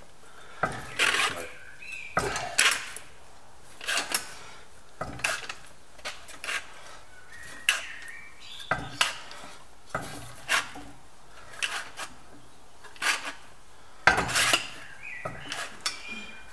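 Shrinker-stretcher jaws clamping down on the edge of a sheet-metal repair panel, shrinking it. Each stroke gives a sharp metallic clack, at an irregular pace of roughly one or two a second.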